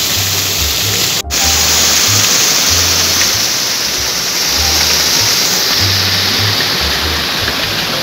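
Waterfall rushing steadily over rocks, under background music with a low bass line; the sound cuts out for an instant about a second in.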